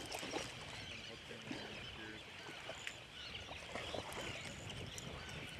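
Shoreline ambience: small waves lapping at a sandy, rocky beach, with birds calling over the water in short chirps.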